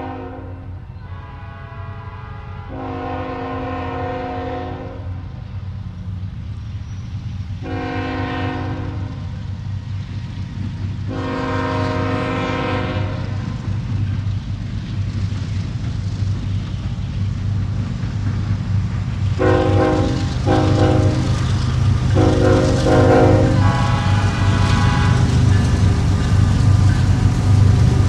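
Diesel locomotive's multi-chime air horn sounding a series of long and short blasts, over the low rumble of the approaching train, which grows steadily louder. Near the end comes a run of short blasts in quick succession.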